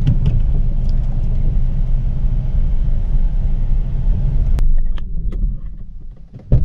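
Car cabin rumble from tyres and engine while driving slowly over a rough dirt road. It dies away as the car comes to a stop. A sharp click comes about two-thirds of the way through, and a short loud thump near the end as the driver's door is unlatched.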